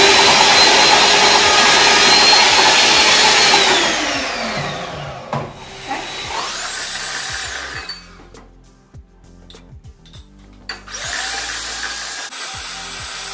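Electric hand mixer beating eggs as sugar is added: the motor runs at a steady pitch, winds down about four seconds in, runs briefly again around six seconds, and after a few light knocks runs steadily again near the end.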